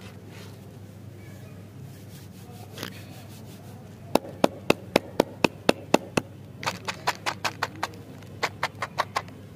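Hands clapping: a quick, even run of about nine sharp claps, about four a second, then two shorter runs of claps after brief pauses.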